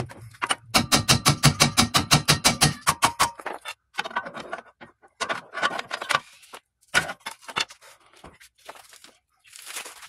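A hammer striking a steel steering knuckle to knock the lower control arm ball joint loose. First comes a rapid run of ringing metal blows, then a few scattered knocks.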